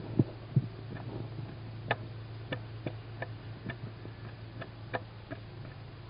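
Steady low hum inside a wooden owl nest box, with about a dozen irregular small clicks and scrapes and two soft thumps in the first second, as the tawny owl chicks shift about on the wooden floor.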